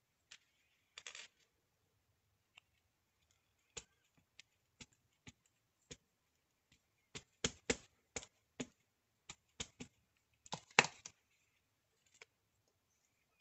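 Small plastic ink pad tapped again and again against a rubber stamp mounted on a clear acrylic block to ink it, giving a run of sharp plastic clicks and taps. The taps come in an irregular string, bunched more thickly near the middle, with the loudest near the end.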